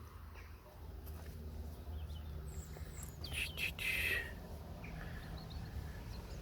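Birds chirping, with a short, louder burst of chirps about three to four seconds in, over a low steady rumble.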